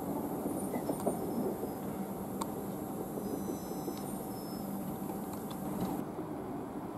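Class 333 electric multiple unit standing at a station platform, its equipment giving a steady low hum with a few faint clicks.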